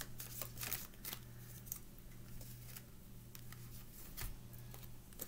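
Tarot cards being shuffled by hand: soft clicks and rustles of card edges, busiest in about the first second, then a few scattered clicks.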